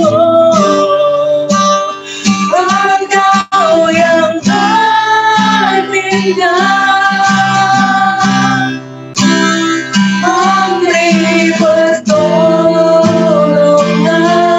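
A woman singing a devotional song in long, held notes, accompanied by acoustic guitar.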